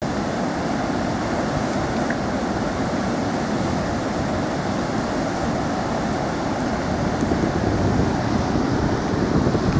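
Water rushing steadily through the open gates of a river hydro dam, a constant noisy roar.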